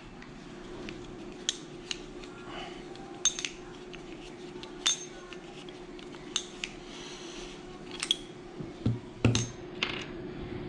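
Small metal marker parts and tools clicking and clinking against each other and the bench, about a dozen sharp clinks at uneven intervals as the paintball marker is taken apart. A steady low hum runs underneath.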